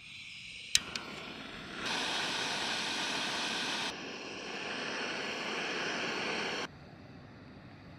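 Jetboil backpacking stove being lit: gas hissing, a sharp click of the igniter under a second in, then the burner running with a steady rush that grows louder about two seconds in and stops suddenly near the end.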